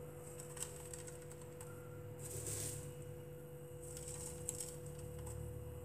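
Faint crackle and rustle of dried rose petals crumbled between the fingers and sprinkled over glasses and a tray, in a few short bursts with a couple of light ticks. A low steady hum runs underneath.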